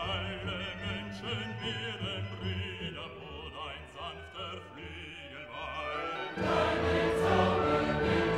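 Background music with a wavering, operatic-style singing voice; it becomes fuller and louder about six seconds in.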